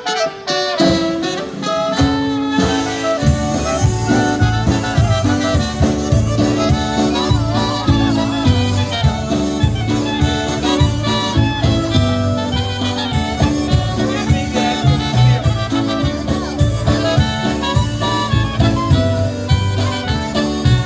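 Live polka band playing an instrumental passage with a steady beat, which starts after a brief pause about a second in; the vocals of a Polish-language polka song come in after it.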